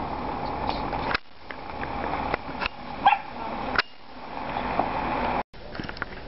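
A dog barking a few short times, loudest about three seconds in, over outdoor noise with handling clicks.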